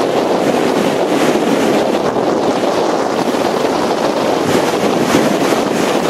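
Pacific Ocean surf breaking on the beach, mixed with wind buffeting the microphone: a loud, steady rush.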